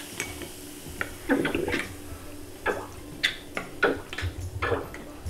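Small plastic squeeze droppers clicking and tapping against a glass jar and a plastic tub while drawing up and dripping vinegar: about ten short, separate taps with light drips of liquid.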